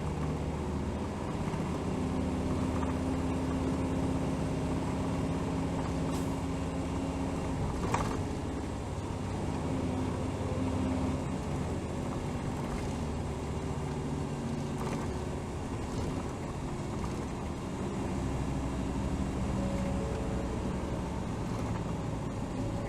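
Hino HR city bus (BDG-HR7JPBE) diesel engine running as the bus drives, its note changing in steps. A single sharp knock about eight seconds in.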